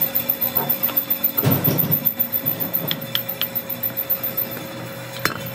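A machine running with a steady, rapid throb of about six beats a second, with a few light metallic clicks, the throb easing near the end.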